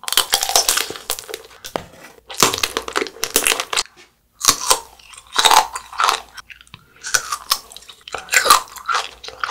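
Close-mouthed crunching and chewing of tanghulu: the hard sugar-candy shell on a strawberry and on aloe pieces cracking between the teeth, in several crackly bursts with a short break about four seconds in.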